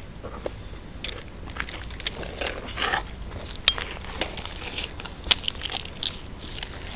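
Irregular crunching and rustling, with a few sharp clicks about halfway through and again later.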